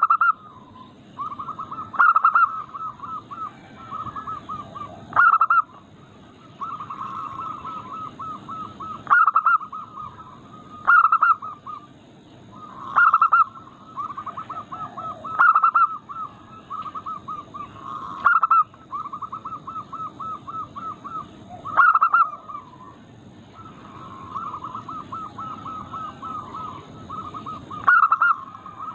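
Zebra doves (perkutut) cooing: long runs of rapid stuttering notes, with a louder, brief call breaking in every few seconds.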